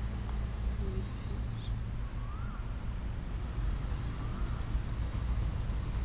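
Steady low outdoor rumble, with two faint short chirps about two seconds apart, likely from a bird.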